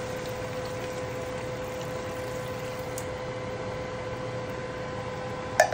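A steady mechanical hum with a faint hiss. Near the end comes one sharp metallic clink as the emptied mackerel can knocks against the frying pan.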